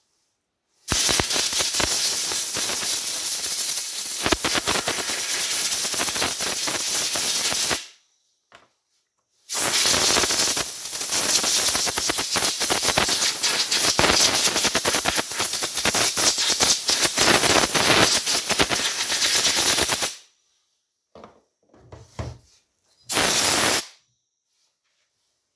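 Pressurised spray hissing hard in long bursts, with some crackle: one of about seven seconds, then one of about ten, then a brief one near the end, as when cleaning a chainsaw carburettor.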